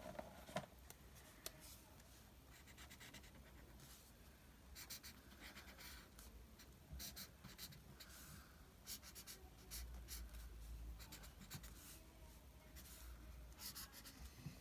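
Felt-tip marker scribbling faintly on paper, in clusters of quick back-and-forth strokes while colouring in an area.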